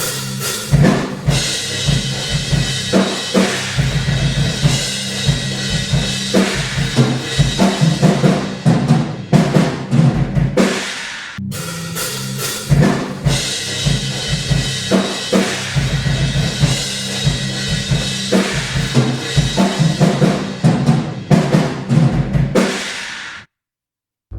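A drum kit recorded with room microphones playing a short groove of kick, snare and cymbals, heard twice with a brief gap about halfway through: an A/B of the drum room mics through a Buzz Audio Velox IC transformerless optical compressor. It stops just before the end.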